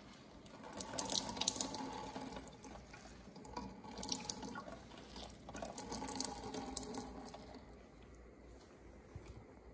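Liquid splashing into a stainless-steel sink through a mesh strainer as a wet cloth bundle is wrung out by hand, in three spells: about a second in, around four seconds in, and again at six to seven seconds.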